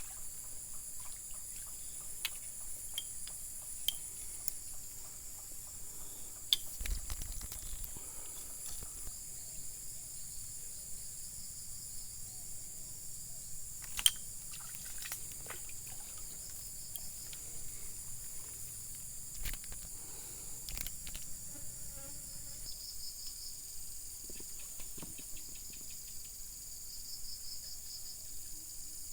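Steady, high-pitched chorus of insects such as crickets, with pulsing trills now and then. Scattered sharp clicks and knocks come on top, the loudest about halfway through.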